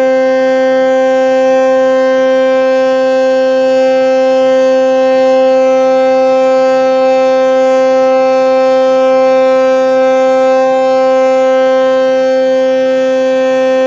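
Ship's horn sounding one long unbroken blast at a steady pitch, sounded as the tanker is launched down the slipway.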